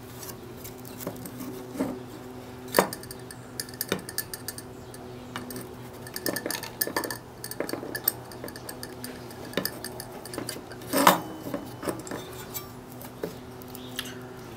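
Small metal hand tools clicking and clinking on a workbench while an old power cord is being opened up, with a few sharper knocks about 3 and 11 seconds in. A steady low electrical hum runs underneath.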